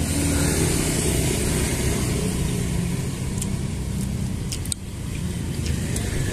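A motor vehicle's engine running close by, a steady low rumble, with a few light clinks of metal spoons against a ceramic plate about halfway through and near the end.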